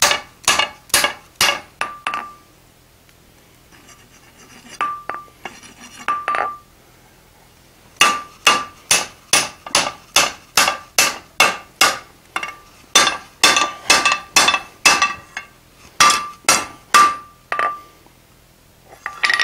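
Hand hammer striking a hot 5/8-inch square bar on an anvil, upsetting a square corner: runs of sharp blows at about two a second with short pauses between runs. Many blows leave a brief ring from the anvil.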